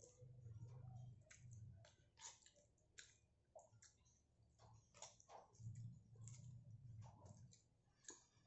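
Faint wet mouth clicks of someone chewing and slurping spaghetti, scattered and irregular, with a few soft low hums between them.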